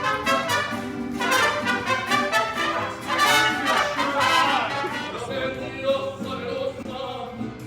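Background music led by brass instruments.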